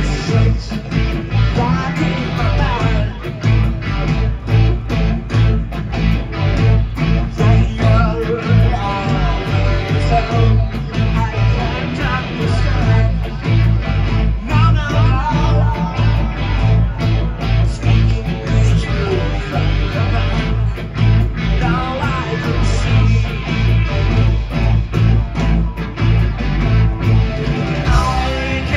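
Rock band playing live: electric guitars, bass guitar and drums keeping a steady beat, with a sung vocal line at times.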